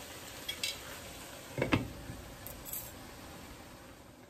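A glass lid set onto a frying pan of duck curry, with one sharp clink about a second and a half in and a couple of lighter clicks before it, over a faint steady sizzle of the curry cooking.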